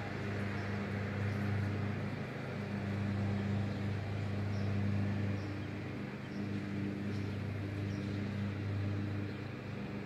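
A steady low motor hum, swelling and easing a little, with a few faint short high chirps now and then.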